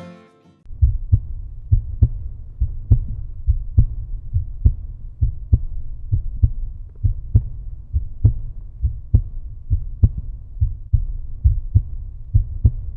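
Closing acoustic guitar music fades out in the first half-second. Then a deep, low thumping beat takes over, about three thumps a second in a slightly uneven rhythm.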